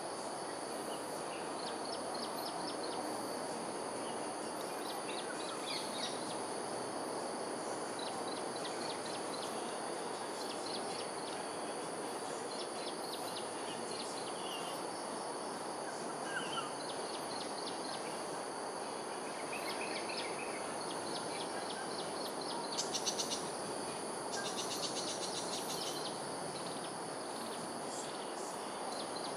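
Dawn-chorus-style ambience: a steady high insect drone over a constant background hiss, with birds chirping and trilling now and then. A louder rapid trill comes about three-quarters of the way through.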